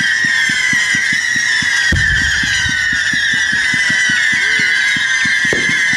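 A single firework shell bursting with a low boom about two seconds in, over a loud steady high-pitched drone with a rapid low pulsing beneath it.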